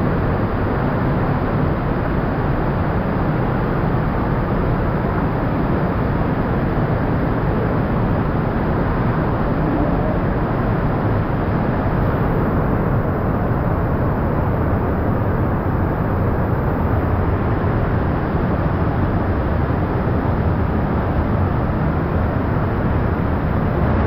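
Large waterfall pouring close by: a loud, steady rush of falling water with no pauses, its higher hiss easing for a few seconds around the middle.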